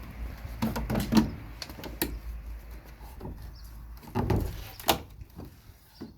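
Wooden beehive frames and boxes being handled: a series of irregular knocks, clicks and scrapes, bunched about a second in and again around four to five seconds in, over a low rumble that stops about four seconds in.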